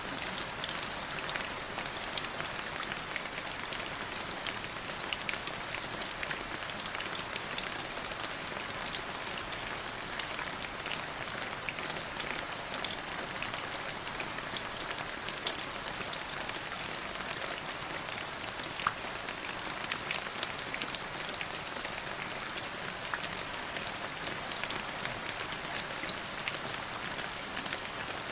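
Steady rain falling on a surface, a dense even hiss with many small drop taps.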